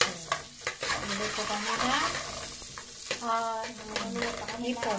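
Butter sizzling and foaming as it melts in a metal pot, stirred with a metal spoon that scrapes and clicks against the pot.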